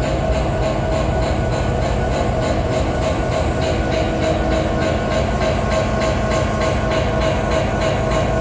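BNSF SD70ACE diesel-electric locomotive running steadily, with a strange rhythmic knocking of about three to four knocks a second over a steady drone and whine from the engine.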